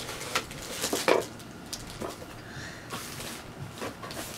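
Clear plastic bag crinkling and a cardboard box rustling as an item in the bag is drawn out of the box: a string of irregular crackles and taps, the sharpest about a second in.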